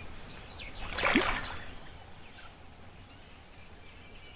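Insects chirring in a steady high, even tone, with a short splash about a second in as a small hooked carp is played at the surface.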